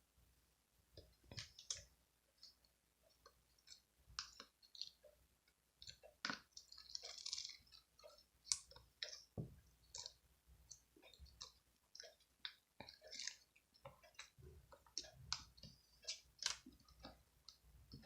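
Faint, irregular small clicks and taps, a few each second, with a short rustle about seven seconds in.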